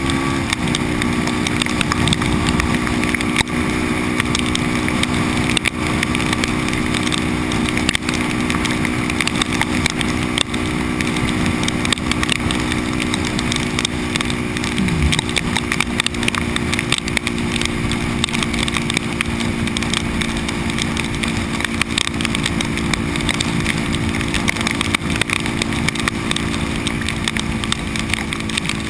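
Supermoto motorcycle engine running at a steady highway cruise, its drone holding one pitch, under a constant rush of wind and rain on the microphone.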